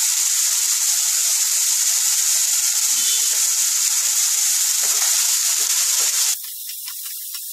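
Chopped vegetables (carrot, beans, onion, tomato) sizzling steadily in a little oil in a nonstick kadai. About six seconds in, the sizzle drops and a spatula stirs and scrapes the vegetables around the pan.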